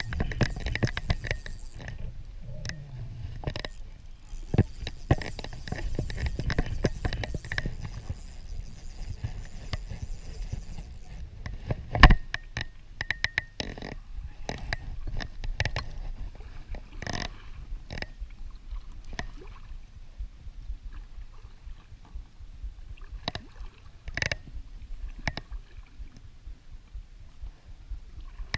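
Irregular clicks and knocks over a low rumble, with one loud knock about twelve seconds in: handling and movement noise aboard a kayak.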